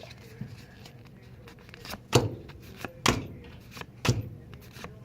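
Four dull thumps, about a second apart, each a short knock with a low thud.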